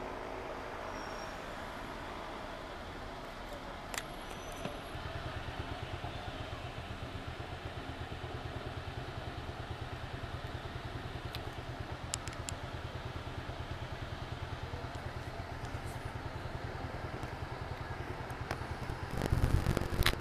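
City traffic and engine rumble heard from inside a moving road vehicle. The rumble grows deeper about five seconds in, with a few light clicks and a louder burst of noise near the end.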